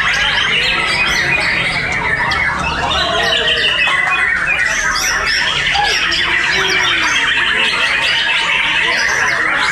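Many caged white-rumped shamas singing against each other at once: a dense, unbroken chorus of loud whistles, chirps and quick rising and falling phrases.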